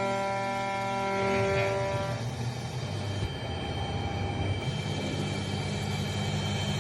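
Road traffic: a vehicle horn held for about two seconds, then the low rumble of passing vehicles, with a steady engine hum coming in about five seconds in.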